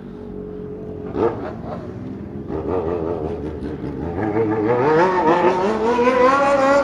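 Motorcycle engines running, with a short sharp bang about a second in, then an engine revving with a wavering pitch that climbs steadily and grows louder toward the end.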